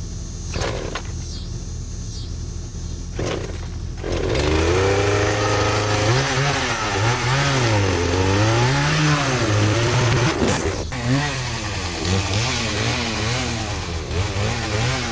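Chainsaw cutting into a tree trunk: after a steady engine hum, the saw speeds up about four seconds in. Its pitch then rises and falls in repeated surges as it bogs and recovers in the wood.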